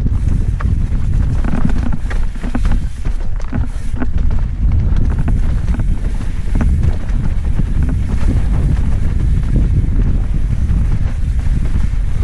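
Wind rushing over the microphone of a mountain bike descending at speed, under a steady low rumble, with scattered clicks and knocks from the bike rattling over rough ground.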